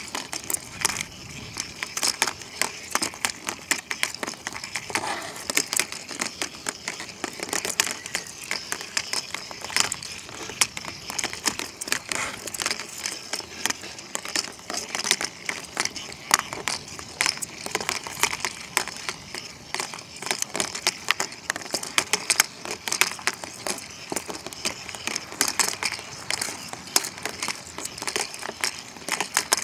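Two Weazel Ball toys, battery-powered rolling balls with plush weasels attached, tumbling around a plastic laundry basket: a constant irregular clatter of knocks and rattles as the balls bump the plastic walls and each other.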